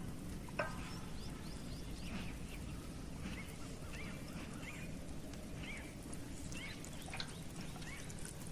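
Small birds chirping repeatedly, short rising calls, over a steady low background noise, with one short knock about half a second in.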